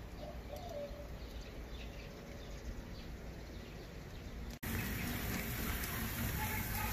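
Quiet outdoor ambience with a few faint bird chirps; about two-thirds of the way through, the sound cuts off suddenly and a louder steady hiss takes over: raw bratwursts sizzling on a hot charcoal kamado grill.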